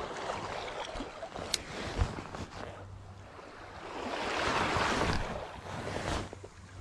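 Shallow sea water and wind noise around a wading angler. Two sharp clicks come about one and a half and two seconds in, and a rushing swell of noise rises about four seconds in and fades again after a second or so.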